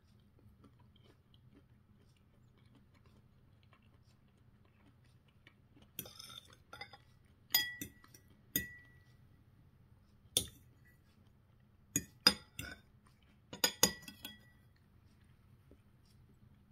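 Metal knife and fork clinking and scraping against a ceramic plate: a scatter of sharp clinks, some with a short ring, from about six seconds in to about fourteen seconds.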